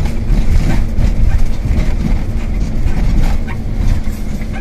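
Van driving over rough town streets, heard from inside the cabin: a steady low road rumble with the body rattling and knocking over bumps several times.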